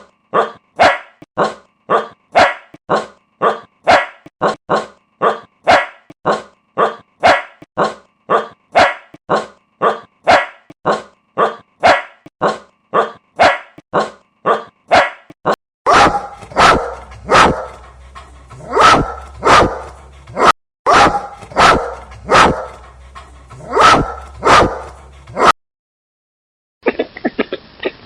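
An animal barking: a fast, regular run of short barks, about two a second, then a second recording of slower, spaced barks over a low steady hum, stopping shortly before a different clip begins near the end.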